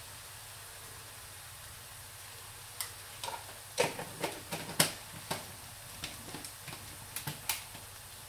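Satay paste mixture frying gently in a wok, a steady low sizzle. From about three seconds in, a run of sharp clicks and taps as a spoon and a plastic spice jar are handled.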